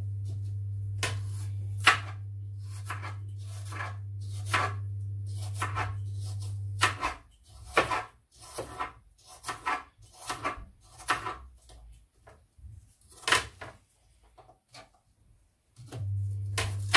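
A knife chopping apple into small pieces on a plastic chopping board: an uneven run of sharp knocks, one or two a second. Under the first part a steady low hum stops suddenly about seven seconds in and returns near the end.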